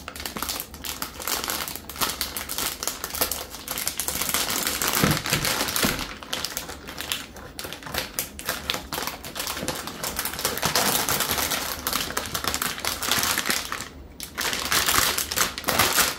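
Metallized plastic anti-static bag around a motherboard crinkling and crackling as it is handled and picked open, a dense run of crackles with a short lull near the end.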